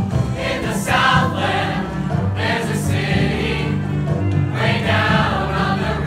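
A large mixed chorus singing over an instrumental accompaniment with a prominent, steady bass line.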